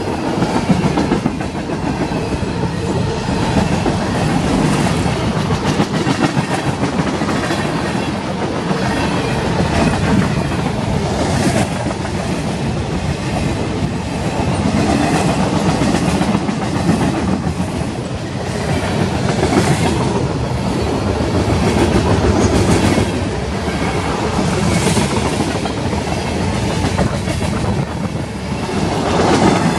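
CSX freight train cars rolling past: a steady loud noise of steel wheels on rail, with repeated clickety-clack every second or two as the wheels cross rail joints.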